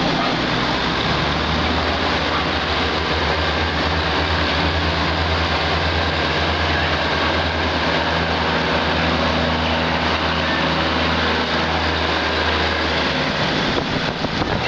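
Heavy rain hissing steadily, with the low hum of a diesel railcar's engine as the train moves along the platform; the engine hum stops near the end.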